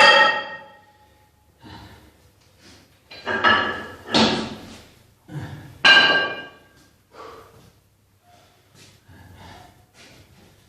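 Metal gym weights clanking: a loud knock with a brief ring right at the start, three more about three to six seconds in, then a few fainter knocks.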